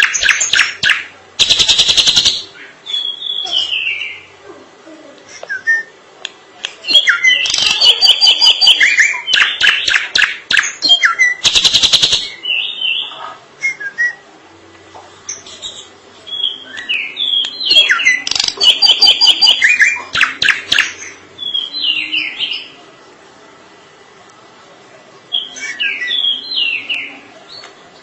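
Drongo singing a long varied song: clear whistled notes mixed with rapid, harsh chattering trills, delivered in phrases separated by short pauses.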